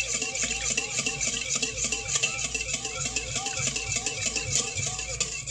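Wire whisk beating a thin liquid mixture in a stainless steel bowl, scraping and clinking against the metal in fast circular strokes, about four a second.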